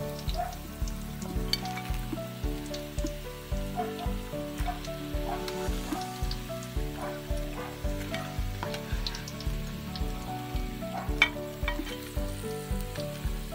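Oil sizzling and crackling as battered corn dogs deep-fry in a wok, with background music with a steady beat playing under it.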